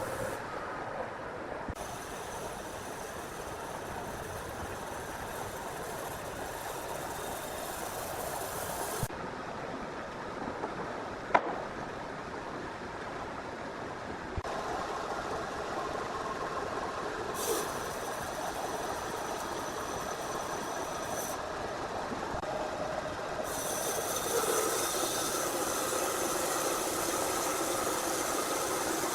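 Sawmill machinery running with a steady mechanical noise that changes abruptly several times. There is one sharp knock partway through.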